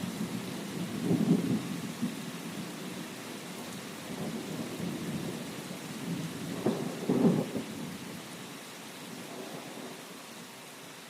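Steady rain with light thunder rumbling low, swelling louder about a second in and again about seven seconds in, then easing down near the end.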